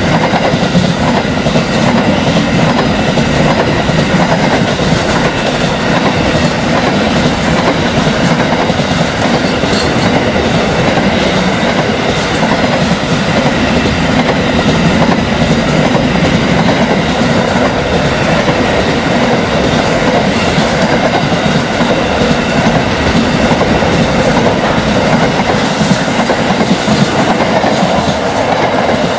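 Freight train wagons, intermodal container wagons and then empty flat wagons, rolling past at speed. The steel wheels make a loud, steady rolling noise on the rails that does not break.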